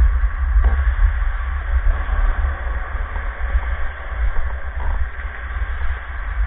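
Wind buffeting the camera's microphone: a loud, uneven low rumble over a steady hiss.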